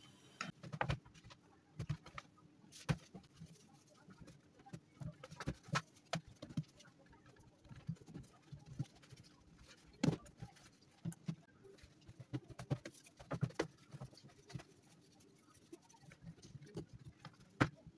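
Hands rolling and patting bread dough on a floured stainless steel tray: irregular soft thumps and pats of the dough against the metal, with occasional sharper taps.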